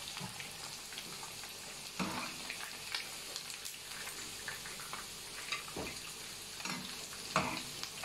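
Chicken pieces sizzling as they fry in oil in a nonstick pan, fried through and nearly done. A metal slotted spatula scrapes and stirs through them in several separate strokes, the loudest near the end.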